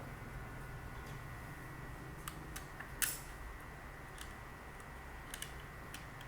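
Scattered light clicks and taps of small speaker parts being handled during disassembly, the sharpest about three seconds in, over a steady low hum.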